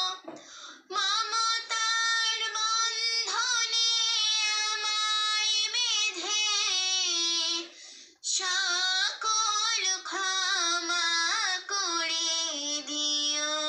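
A young girl singing a Bangla Islamic gojol solo and unaccompanied, in long held, ornamented phrases, with short breaths about half a second in and near eight seconds.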